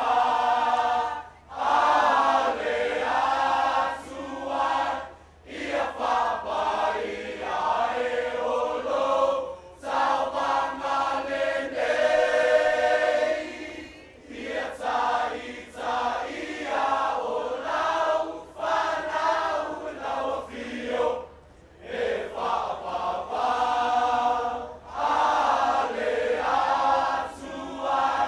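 A group of boys and young men singing together in Samoan, in short phrases with brief breaks between them.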